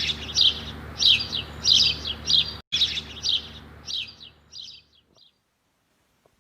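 Bird chirping in short, repeated high calls, about two a second, over a low steady hum; both break off briefly near the middle and fade out about five seconds in.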